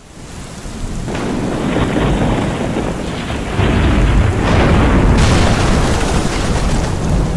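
Thunderstorm sound effect: thunder rumbling over the hiss of heavy rain, swelling up from the start. A sudden brighter crash joins about five seconds in.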